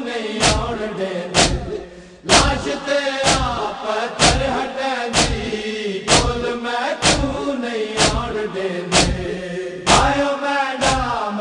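A group of men chanting a Punjabi noha, a Shia mourning lament, in unison, with sharp hand slaps on the chest (matam) about once a second keeping the beat. The sound dips briefly about two seconds in.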